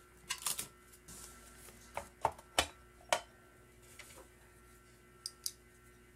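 Plastic housing of an OXO kitchen scale knocking and clicking as it is handled, turned over and set down on a cutting mat. There are scattered sharp taps, most of them in a cluster of four about two to three seconds in, and two faint high ticks near the end.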